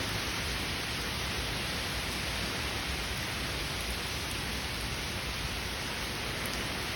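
Heavy rain falling steadily, an even hiss with no break or thunderclap.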